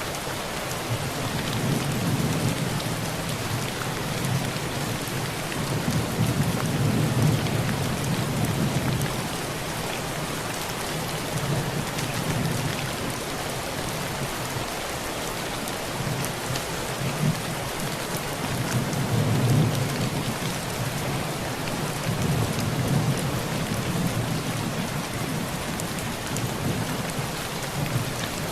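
Heavy rain drumming steadily on a tin roof, with thunder rumbling low and swelling in two long rolls, one over the first third and another from a little past the middle.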